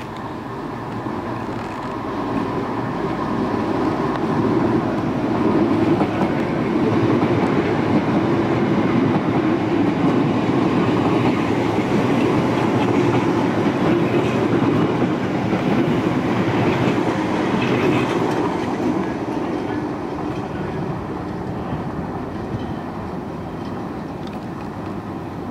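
London Underground Piccadilly line 1973 Tube Stock train running past at speed: a steady rumble of wheels on rail that builds over the first few seconds, is loudest in the middle as the train goes by, then dies back to a lower, steady level.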